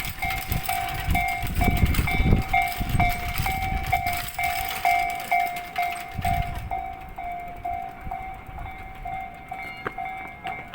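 Japanese level-crossing warning bell ringing in a steady, rapid ding-ding, about two to three strokes a second, while a train passes with a heavy rumble. The train noise dies away about two-thirds of the way through and the bell keeps ringing.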